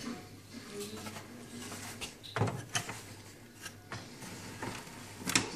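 Hard plastic side panel of a Krups espresso machine being handled and fitted onto the machine's frame: a few knocks and clicks of plastic on plastic, loudest about two and a half seconds in and again near the end.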